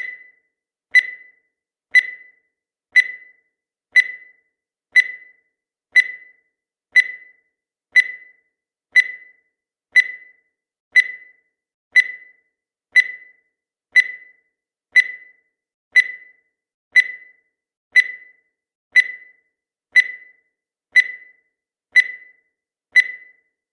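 Countdown timer sound effect: a short, high electronic beep once every second, each sharply struck and fading quickly, in a steady, even rhythm.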